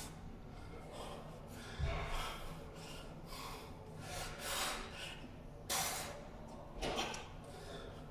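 A man breathing hard, with sharp, noisy exhales about once a second as he tenses and flexes into poses.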